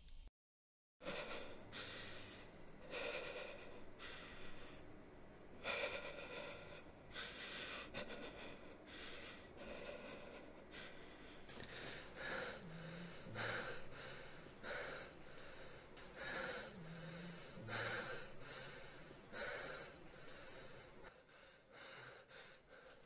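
A man breathing heavily in ragged gasps, one breath about every second or two, a few of them with a low voiced catch, trailing off near the end.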